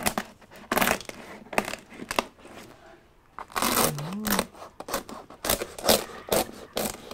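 A knife cutting through the crisp, glassy skin of a whole roasted pig (lechon), a rapid series of sharp crackles and crunches. A short vocal hum sounds about halfway through.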